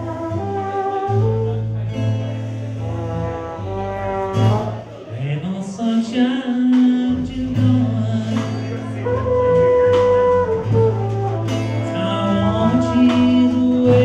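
Live band music led by a trumpet playing a melody of held notes with a rising slide, over acoustic guitar and drums.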